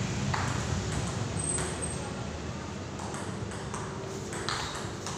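Table tennis ball being struck back and forth by paddles and bouncing on the table during a rally: a series of sharp, irregularly spaced clicks, roughly one every second or so.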